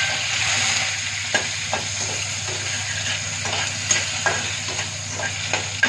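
Kadhi tempering sizzling in hot oil: fenugreek seeds, curry leaves and garlic frying in a pan as they are stirred, with a spoon clicking against the pan about six times.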